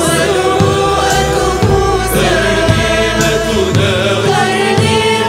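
Female voice singing an Arabic devotional song in praise of the Prophet Muhammad. It runs over a music backing with a slow, regular beat about once a second.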